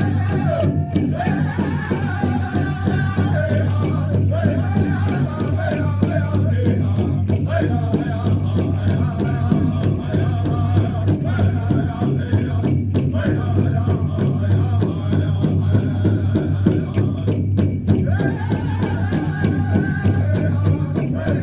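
Powwow drum group singing a hoop dance song: several voices in unison over a fast, steady drumbeat.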